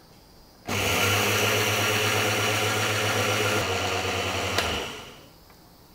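Small electric grinder running, grinding granulated sugar into powdered sugar. It starts suddenly about a second in, runs steadily with a low motor hum for about four seconds, then a click and it winds down.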